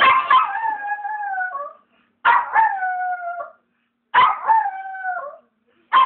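Dog howling, set off by TV clock music that ends a moment in: three long howls, each holding its pitch and sliding down at the end, with short gaps between, and a fourth starting just before the end.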